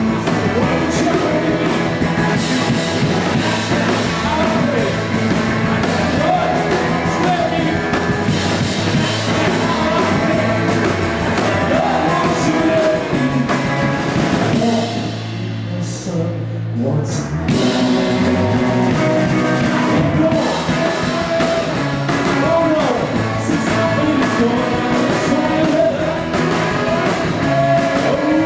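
Live rock band playing a mid-tempo song, with electric guitar, drum kit and a singer. About halfway through, the drums and cymbals drop out for roughly two seconds, leaving a low held note, before the full band comes back in.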